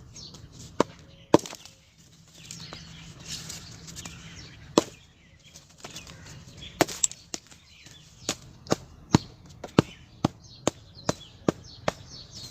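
Lumps of set-hard cement being struck to break them: sharp knocks, a few scattered at first, then a steady run of blows about two a second in the second half. The cement has set rock-hard from too much water and will not crumble by hand.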